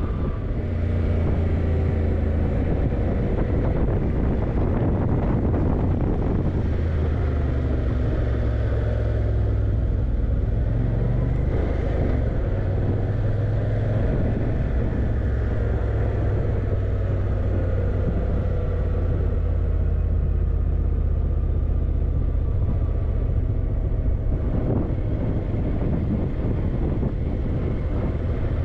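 Yamaha TDM900's parallel-twin engine running steadily under the rider, its low engine note shifting in pitch a few times as the speed changes.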